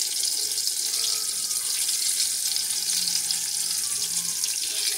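Battered onion rings sizzling in a pot of hot deep-frying oil: a steady, even hiss.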